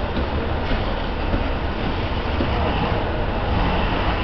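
Fire engine running steadily at the scene, a constant rumble.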